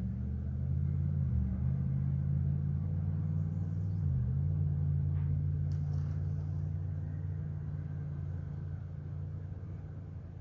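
A vehicle engine running with a low, steady hum, its pitch dipping briefly about a second and a half in and again about four seconds in.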